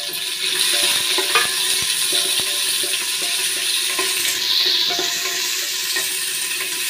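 Sliced onions and green chillies sizzling in hot ghee in a pressure cooker, stirred with a wooden spatula that scrapes and knocks against the pot, in scattered clicks over a steady hiss.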